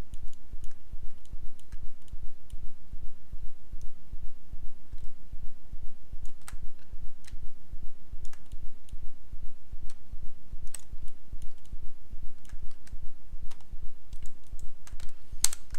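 Computer keyboard keys and mouse buttons clicking at an irregular pace as 3D modelling shortcuts are entered, over a steady low hum.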